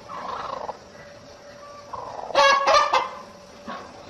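A domestic bird calling: a quick run of loud, honking calls about two seconds in.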